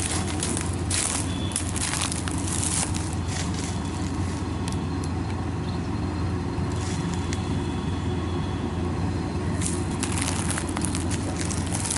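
Kubota DC-93 combine harvester's diesel engine running steadily under load, with irregular crackling over the hum.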